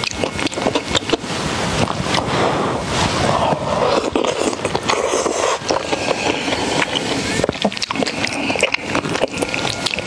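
Close-miked wet eating sounds: dense chewing, smacking and squelching of food in the mouth, with a longer slurp-like wash in the middle.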